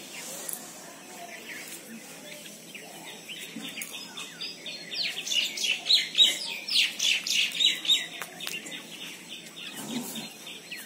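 A bird calling: a long, fast series of repeated high notes, about five or six a second, building to its loudest in the middle and then tailing off.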